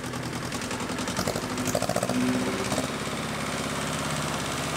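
Small Kubota tractor's engine running steadily as it is driven, newly repaired and running again.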